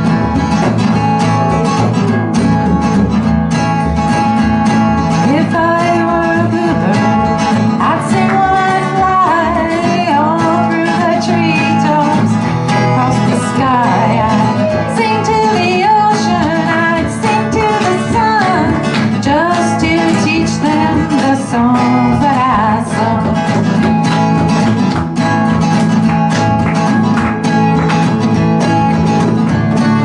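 A woman singing to her own acoustic guitar playing, with the guitar alone for the first few seconds and again for the last several seconds.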